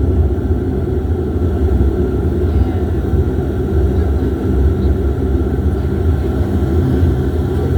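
Steady low drone of a Dash 8 turboprop's engines and propellers heard from inside the cabin, an even rumble with a constant hum.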